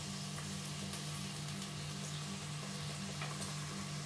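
Sunflower oil sizzling steadily in a hot rice cooker pot, poured onto gizzards that were boiled dry.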